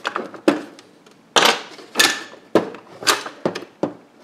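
Metal parts of a Mossberg 500 shotgun clicking and clinking against each other and the work surface during takedown, as the trigger group is removed. About eight sharp clicks come at uneven intervals; one about a second and a half in rings on a little longer than the rest.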